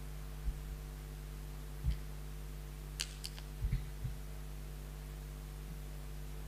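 Steady electrical mains hum through the altar microphone's audio chain. A few soft low bumps and two light clicks come from altar vessels being handled near the microphone, the clicks a little past the middle.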